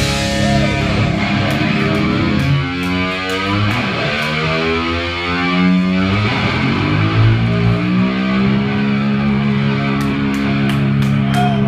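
Live rock band playing, led by overdriven electric guitar holding long sustained notes that slide down and back up in pitch.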